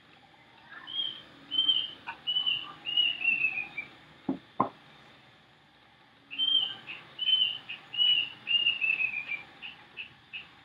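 A bird singing two phrases of about half a dozen quick, repeated whistled notes each, the notes sliding down in pitch toward the end of each phrase. Two sharp knocks fall in the gap between the phrases.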